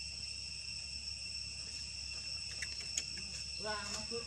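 Steady outdoor insect chorus: a high-pitched drone at several fixed pitches throughout. A few faint clicks, and a brief voice near the end.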